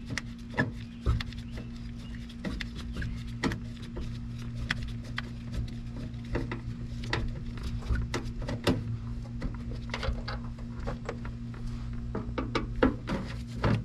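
Hand screwdriver clicking and scraping irregularly as screws are turned out of a rear cab-wall speaker mount, over a steady low hum.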